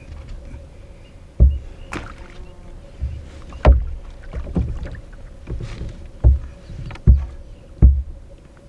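Irregular knocks and thumps against a canoe hull, about seven in all, as a walleye is handled and unhooked in a landing net inside the canoe.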